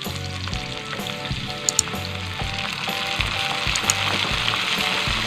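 Chopped onions sizzling in hot oil in a frying pan as water is added, a steady frying hiss that grows a little louder in the second half. Two sharp clicks come a little under two seconds in.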